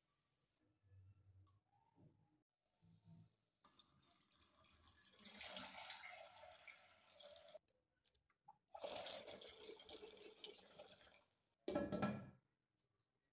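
Water poured into an empty nonstick pot in two pours of a few seconds each, the first growing louder as it goes. Near the end a glass pot lid is set on with a short ringing clink, the loudest sound.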